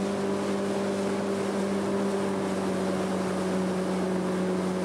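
Motorboat engine running steadily under way, a constant low hum with wind and water noise over it.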